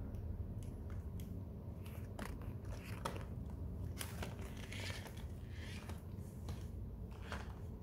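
Plastic toy car handled and gnawed by a baby macaque: scattered clicks and knocks of plastic, with a short scraping rush about four seconds in as the car is pushed across the tiled floor.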